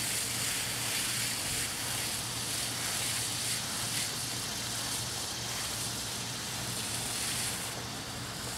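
Garden hose spray nozzle on a shower setting, water hissing and pattering steadily onto the soil of a raised bed; the hiss softens a little near the end.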